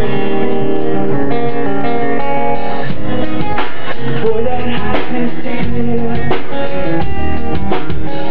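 Live acoustic rock band playing an instrumental passage on guitars: held chords at first, then sharp rhythmic hits join about three seconds in.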